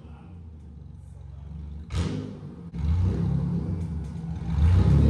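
Car engine running with a low rumble: quiet at first, a short louder burst just before two seconds in, then it jumps abruptly louder and keeps rumbling.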